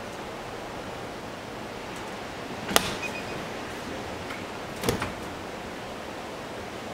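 Two short sharp clicks, about three and five seconds in, from a built-in dishwasher's door being worked by its handle, over a steady hiss of background noise.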